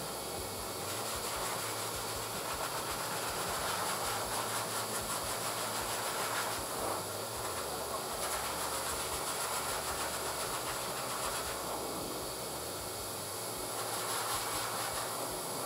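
High-velocity pet dryer blowing a steady rush of air through its hose and nozzle onto a wet St. Bernard's thick coat. Its tone changes every few seconds as the nozzle is moved over the dog.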